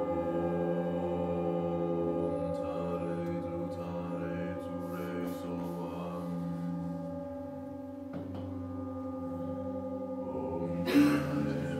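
Struck metal sound-bath instruments, such as gongs and bowls, ringing together in long sustained tones that slowly waver. There is a faint knock about eight seconds in and a short hiss near the end.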